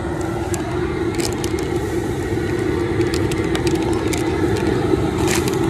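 Propane jet burner under a crawfish boiler running steadily, with the water at a rolling boil and scattered crackles and pops as powdered crab boil seasoning is poured in.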